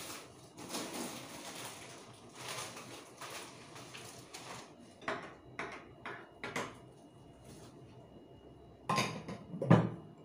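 Dishes and utensils clattering as they are handled, a few separate knocks, then the loudest clatter near the end.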